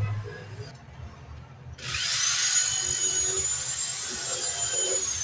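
Power drill running steadily for about three seconds, starting about two seconds in, its high whine holding level and dipping slightly as it stops.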